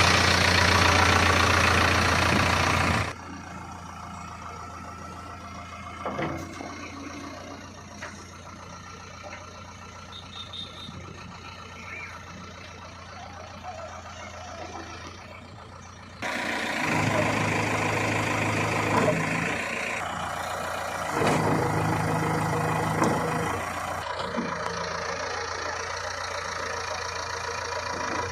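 Heavy diesel machinery running, a backhoe loader working beside a tractor. The engine is loud for the first three seconds, drops to a quieter run, then grows loud again from about sixteen seconds to twenty-four seconds.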